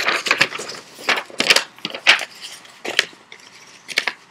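A sheet of ordinary paper being folded and creased by hand: irregular rustling with sharp crackles as the fold is pressed down.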